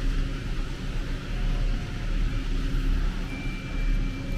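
Chairlift machinery running with a steady low rumble as the chair carries a rider out of the loading station. A thin high whine comes in near the end.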